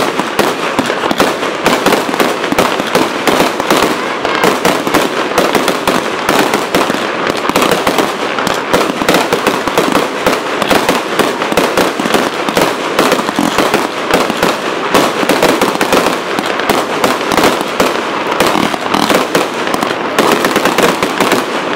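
Aerial fireworks display: a dense, unbroken barrage of bangs and crackling from shells and batteries going off in quick succession.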